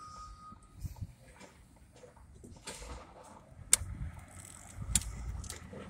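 A reversing alarm gives one last beep at the start. Scattered knocks and clanks follow over a low rumble, with two sharp knocks, the loudest sounds, a little before four seconds and about five seconds in.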